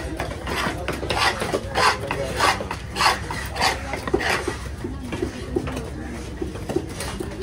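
Large fish-cutting knife scraping through tuna flesh against the chopping block in about seven rasping strokes, a little over half a second apart, stopping about four and a half seconds in.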